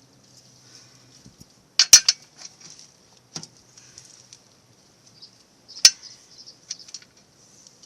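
Metal hand tools clinking against battery hardware: a few sharp metallic clicks, the loudest a quick double clink about two seconds in and another near six seconds, as a wrench works on the motorcycle battery's terminal bolts.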